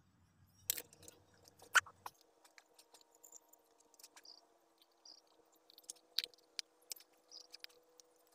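Handling noise from a homemade diving mask: a black truck inner-tube rubber strip and a PVC ring with its glass lens being fitted and moved by hand, giving scattered clicks and rubbing, the sharpest about a second in and twice more late on. Short high chirps recur every second or so, and a faint steady hum starts about a second in.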